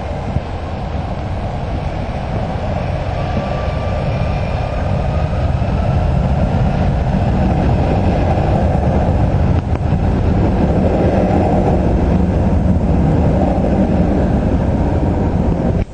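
Jet airliner's engines at takeoff thrust for departure: a loud low rumble that builds over the first few seconds and holds, with a faint whine gliding up in pitch a few seconds in.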